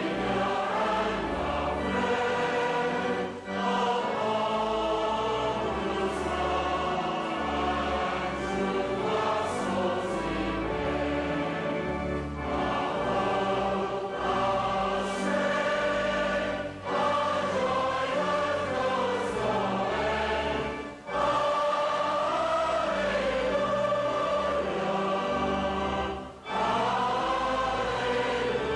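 A choir singing a hymn in sustained lines, pausing briefly for breath between phrases.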